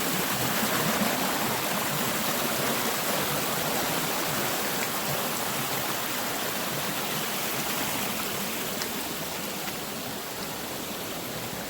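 Mountain stream rushing steadily, growing a little fainter toward the end.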